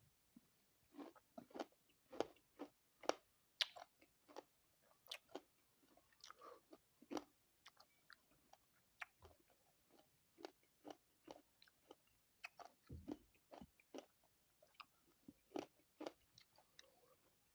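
Close-up chewing and crunching of a mouthful of pomegranate seeds: faint, irregular crisp crunches, about one or two a second.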